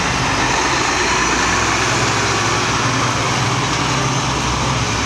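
Volvo fire engine's diesel engine running as the truck drives slowly past close by. Its low engine hum grows stronger about a second and a half in.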